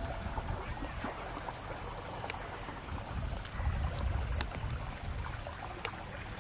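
Outdoor field ambience: wind buffeting the microphone with a low, uneven rumble, and insects chirping steadily in a high, pulsing drone.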